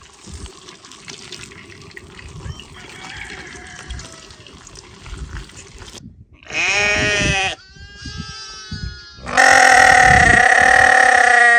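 A farm animal bleating over a faint low background: one short call about six and a half seconds in, then a long, loud call near the end that runs on past it.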